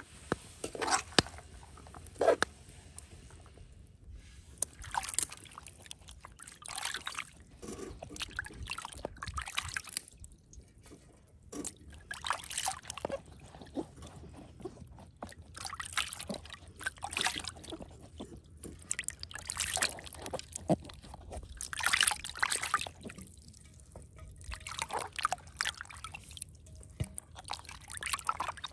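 A few sharp clinks of a spatula against a metal cooking pot in the first two seconds, then hands washing bell peppers and tomatoes in a bowl of water: repeated sloshing and splashing, a burst every second or two.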